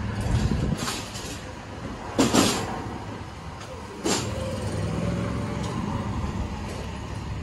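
City street traffic: a steady low rumble of passing vehicles. A loud, sudden burst of noise comes about two seconds in, and a shorter, sharper one at about four seconds.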